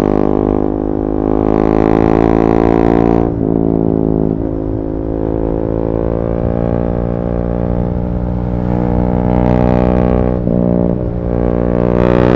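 KTM 390 Duke's single-cylinder engine running through an Akrapovic slip-on exhaust with a decat pipe, holding a fairly steady note. The note dips briefly a few times and climbs slowly in pitch near the end.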